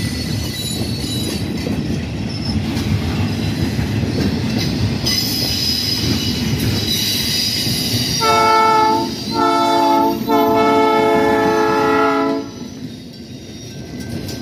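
Freight train rolling past with steady wheel and rail noise and some high-pitched wheel squeal. About eight seconds in, a diesel locomotive's multi-chime air horn blows three blasts, the last the longest. It ends about twelve seconds in, and the train noise then fades.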